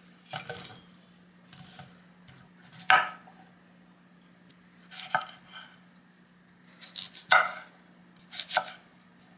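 A vegetable knife cutting whole cucumbers crosswise on a wooden cutting board, each cut ending in a sharp knock of the blade on the board. The knocks come one every second or two, the loudest about three seconds in and again about seven seconds in.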